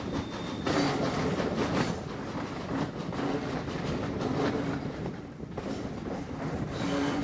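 Passenger coaches of a steam-hauled heritage train running over the rails: a continuous rumble with the clickety-clack of wheels on rail joints, heard close from a carriage window.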